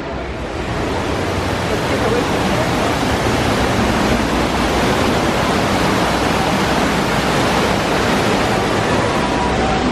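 A steady rushing noise that swells in the first second and then holds, with faint voices murmuring underneath.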